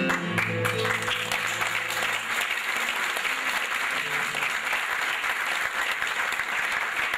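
Audience applauding, with the last notes of a guitar soundtrack fading out about two seconds in.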